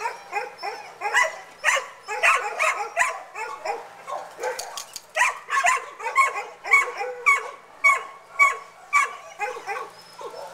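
Several dogs barking over one another in quick, repeated barks. In the second half one bark repeats at an even pace, about two a second.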